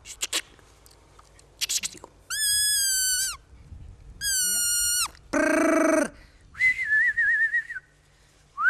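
A person whistling: after a couple of short clicks, two long level whistled notes of about a second each, then a short deeper call, then a warbling trilled whistle.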